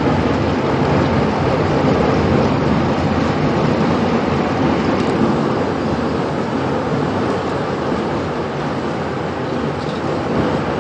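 Steady, loud roar of a violent EF5 tornado and its winds, an even rushing noise with no separate bangs.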